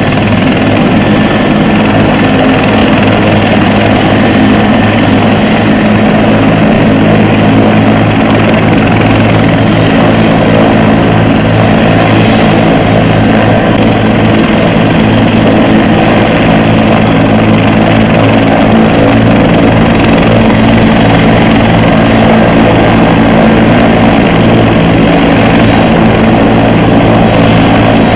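Helicopter running on the ground with its main rotor turning: a loud, steady rotor and turbine sound with a constant low hum.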